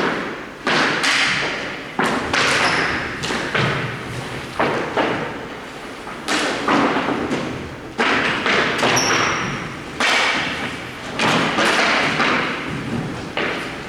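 Hard hockey shots thudding one after another, about every one to two seconds. Each impact rings on in the long echo of a large hall, and a couple of brief high squeaks come in between.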